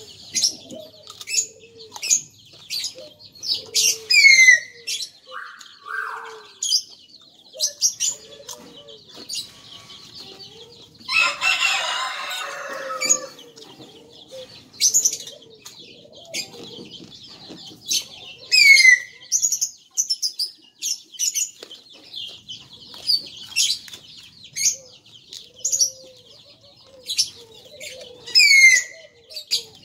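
Small birds chirping over and over, with a loud call that sweeps down in pitch every ten seconds or so and softer lower notes beneath. A brief noisy burst about eleven seconds in.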